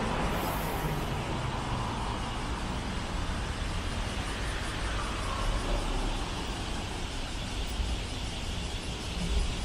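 Steady road traffic, cars and trucks passing on a busy city street, heard as a continuous rumble with no single loud event.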